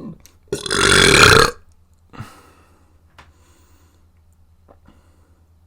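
A person burping once, loud and drawn out for about a second, starting about half a second in. A much fainter, breathy trace follows about a second later.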